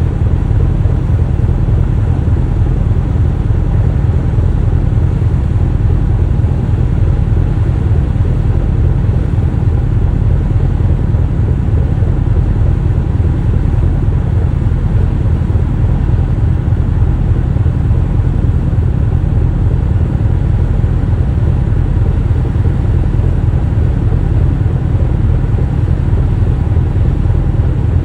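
Steady deep rumble of a ship under way, unchanging throughout.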